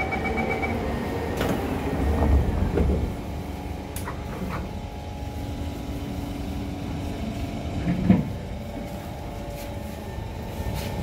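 SMRT C151 train's door-closing chime ending just under a second in, then the doors sliding shut with a heavy thud about two to three seconds in. The train then stands with a steady electrical hum, a few clicks, and a sharper knock about eight seconds in.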